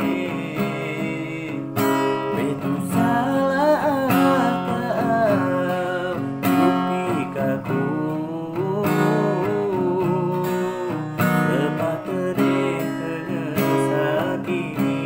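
Acoustic guitar strummed in chords, with a man singing along in a wavering voice through the middle of the stretch.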